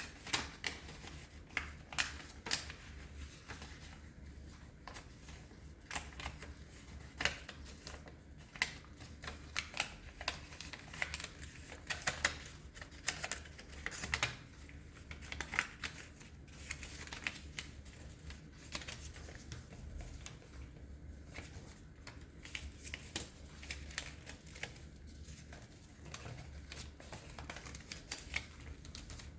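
Paper being folded and creased by hand for an origami bird: irregular crisp crackles, taps and rustles, some in quick runs. A steady low hum lies under them.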